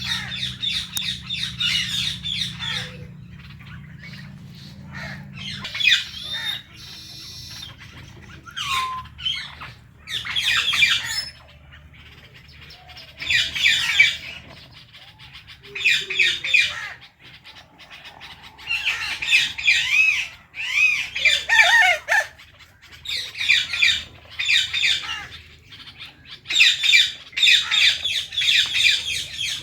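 Indian ringneck parrots squawking and chattering in repeated bouts of harsh, shrill calls, each a second or two long, with short pauses between.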